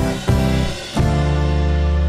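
Background instrumental music, a few notes changing and then a held chord.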